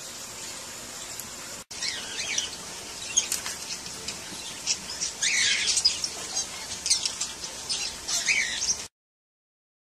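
Parrot chirping and squawking in many quick high-pitched calls over a steady hiss, cutting off abruptly near the end.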